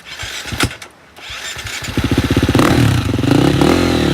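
Dirt bike engine sputtering and dying, then starting again about a second in. It picks up to a loud, fast, steady run with one rise and fall in revs near the middle.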